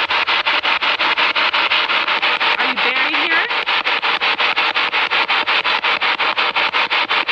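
Spirit box, a radio that sweeps rapidly through stations, hissing with static that is chopped into short bursts about eight times a second, with a brief snatch of pitched sound caught in the sweep about three seconds in.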